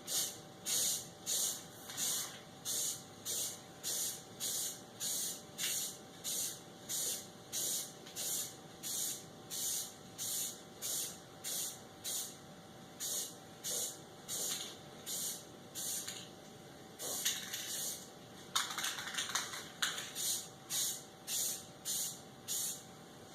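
Aerosol spray can of red paint hissing in short, quick bursts, nearly two a second, as the paint is dusted onto drill press parts; near the end come a few longer sprays.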